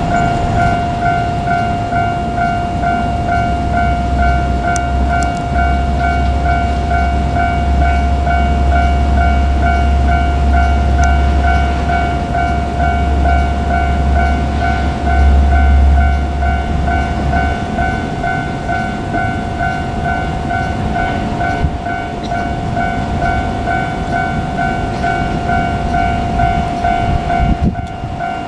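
A Japanese railway level crossing's warning bell dings over and over at a rapid, even pace. Under it a diesel railcar runs through the crossing, its engine rumbling and its wheels clacking; the rumble dies away about two-thirds of the way in while the bell keeps ringing.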